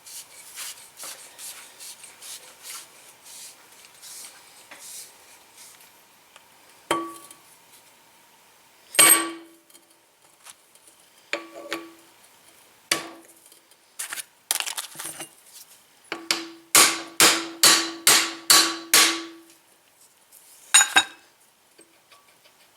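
A hammer tapping on metal coilover shock parts, each strike with a short metallic ring. Faint light ticking comes first, then single strikes, then a quick run of about eight taps and one last tap near the end.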